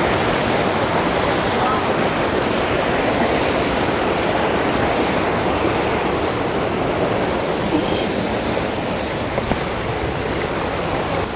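Waterfall rushing: a steady, loud wash of falling and tumbling water from the cascades, with a faint high steady tone running through it.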